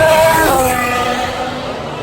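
Racing car engine at high revs, its pitch stepping down over the first half second and then holding steady.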